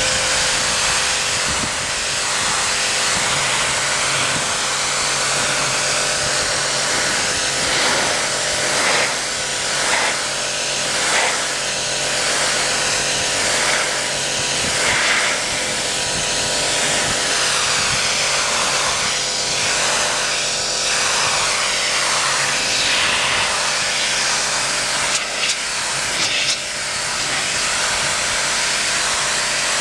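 Kärcher pressure washer running steadily, its water jet hissing against the sailboat's non-skid deck as it rinses off algae remover, under the steady hum of the washer's motor. The hiss swells and fades over and over as the lance sweeps back and forth across the surface.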